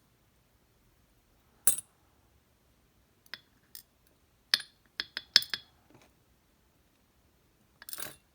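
Small metal parts of a dimple cam lock clinking as the lock is taken apart: a series of sharp clinks and clicks, single ones at first, then a quick run of several a little past halfway, and a short rattle near the end.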